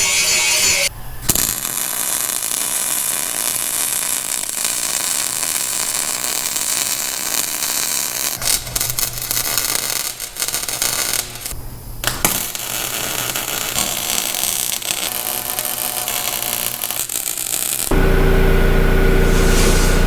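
Electric welding on steel: a steady, noisy buzz broken by brief pauses. Near the end a different machine with a steady hum takes over.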